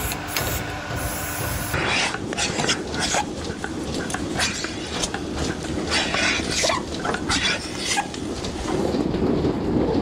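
Milking-parlour machinery: the milking cluster's teat cups hiss as they draw air and its metal fittings clank irregularly while the unit is put on a cow. This runs over a steady low rumble. For the first couple of seconds a steady machine hum with several tones is heard instead, and it stops abruptly.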